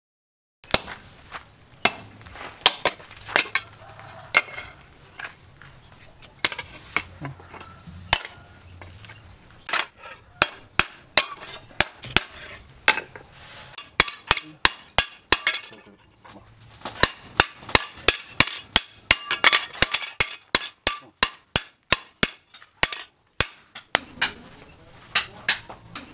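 Hand hammer striking a steel cleaver blade on a steel anvil post: sharp metallic clinks with a short ring. The blows come irregularly at first, then in quick runs of about four to five a second, and thin out near the end.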